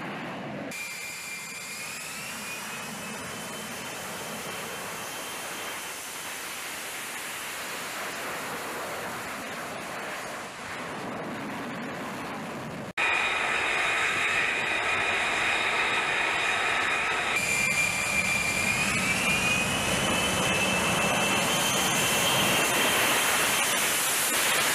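F-35B Lightning II's Pratt & Whitney F135 jet engine running on a ship's flight deck: a high whine over a steady roar, rising in pitch about a second in. After a sudden cut midway the sound is louder, the whine rises again, and the roar builds near the end as the jet starts a short takeoff roll.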